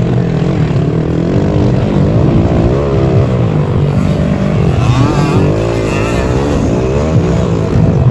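Motocross dirt bike engines racing, the pitch rising and falling over and over as the throttle is opened and closed around the track.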